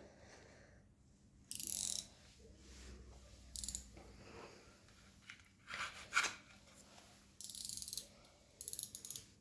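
Hands handling craft materials: about five short scratchy, rustling bursts with quiet gaps between them.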